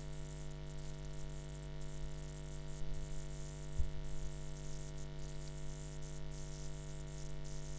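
Steady electrical hum and buzz with a layer of hiss, unchanging throughout; a faint low thump about four seconds in.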